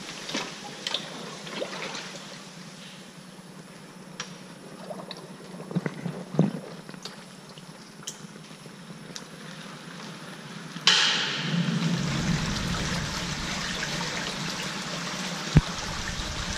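Water sloshing and running in an apple bin-dumping tank as a wooden bin of apples is lowered into it and the fruit floats free, with a few light knocks. About eleven seconds in, a louder steady rush of water starts suddenly.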